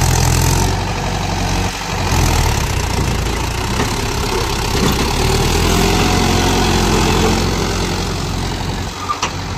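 Heavy diesel engine idling steadily close by, with a faint rise in pitch partway through.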